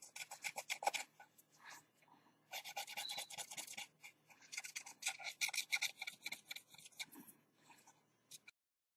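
Quick scratchy rubbing strokes on a Samsung Galaxy S5's frame as old display-gasket adhesive is scrubbed off with a solvent cleaner. The strokes come in several bursts with short pauses.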